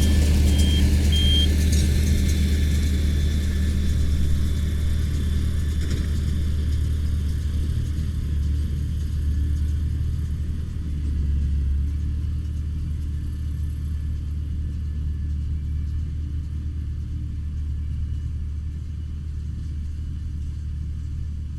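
Tractor engine running steadily with a baler in tow, a deep low rumble that gradually grows fainter.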